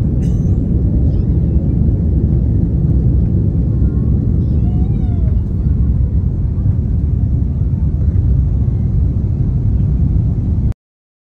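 Airbus A330 cabin noise in the climb after takeoff: a steady, low rumble of engines and rushing air heard from inside the cabin. It cuts off abruptly near the end.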